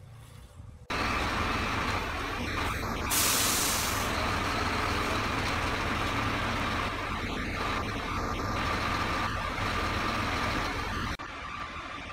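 Heavy truck running steadily at a construction site, with a loud burst of air hiss lasting about a second, about three seconds in.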